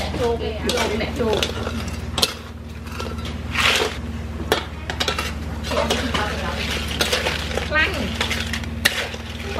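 Metal spatula and ladle scraping and clanking against a large metal wok, with crab shells clattering as the crabs are stir-fried. Voices and a steady low hum run underneath.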